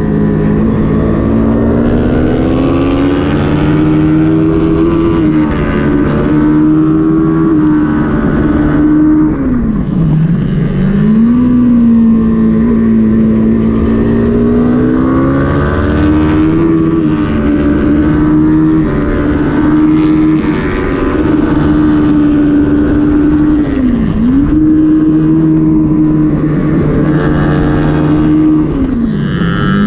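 Kawasaki Ninja 400 parallel-twin engine at full race pace, heard from onboard over wind rush: the engine note climbs in steps through the gears and drops sharply about ten seconds in, again later, and near the end as the bike brakes and downshifts for corners.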